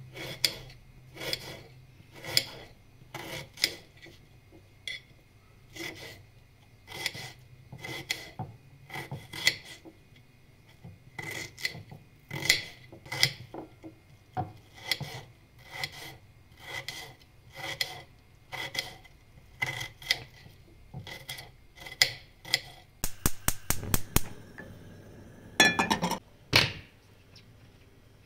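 A kitchen knife slicing a peeled onion on a ceramic plate, about two cuts a second, each ending in a light tick of the blade on the plate. Near the end there is a quick run of sharp clicks, followed by a couple of louder knocks.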